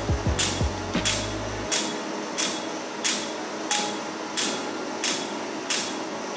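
Laser hair-removal handpiece firing pulse after pulse on the underarm. Each pulse is a short, sharp snap with a hiss, about three every two seconds in a steady rhythm.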